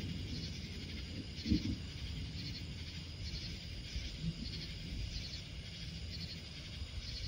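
Night insects chirping in a pulsing rhythm, about one pulse a second, over a low, continuous rumble of distant thunder that swells briefly about a second and a half in.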